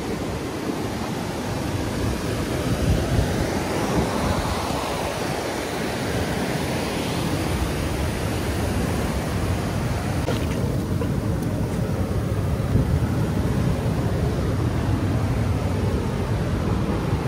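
Ocean surf breaking and washing up the beach. A wave surges a couple of seconds in and drains away after about ten seconds, under a constant low rumble of wind on the microphone.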